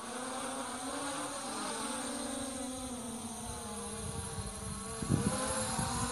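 Blade quadcopter's electric motors and propellers buzzing in flight, the pitch wavering up and down with the throttle. A few low thumps come near the end.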